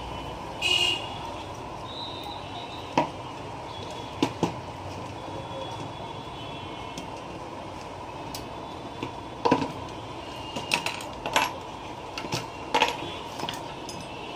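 Plastic and metal parts of a laser printer's fuser assembly clicking and knocking as it is taken apart by hand and with pliers: scattered single clicks, then a quicker cluster of them in the second half, over a faint steady hum.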